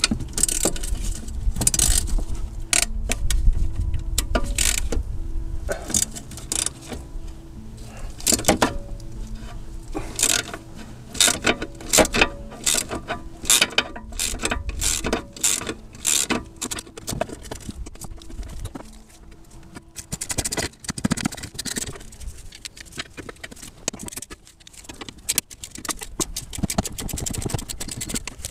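Ratchet wrench clicking in short irregular runs as the 17 mm nut on a Mercedes W211 upper control arm ball joint is worked loose, the ball stud held with a hex key. There are scattered knocks of tools against metal.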